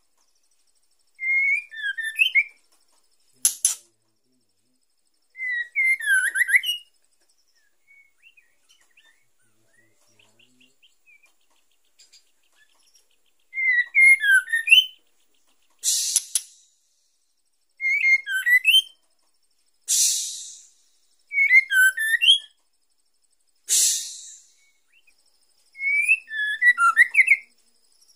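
Female white-rumped shama calling: short whistled, warbling phrases of a few notes, repeated every two to four seconds, with four brief harsh hissing bursts between them. These are the calls of a female in breeding condition.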